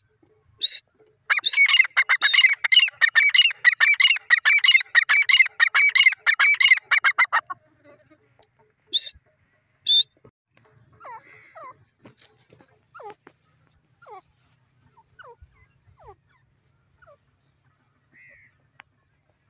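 Grey francolin calling: a single loud note, then a fast run of loud, ringing notes for about six seconds, then two more single notes. After that only faint scattered chirps are heard.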